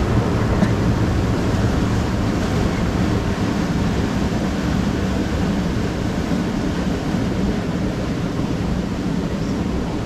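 Turbulent water of a Hafema river rapids ride channel churning and splashing around a round raft boat, a steady rushing that eases slightly toward the end.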